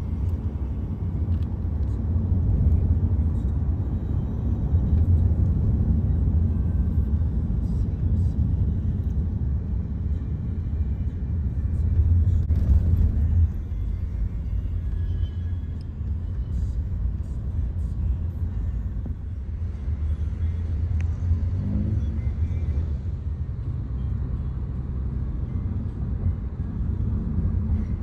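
Steady low road rumble of a car driving, heard from inside the cabin.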